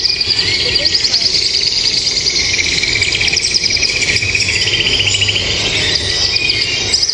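Many birds chirping and trilling at once: fast, high trills that overlap without a break, with a lower trill joining for a few seconds in the middle.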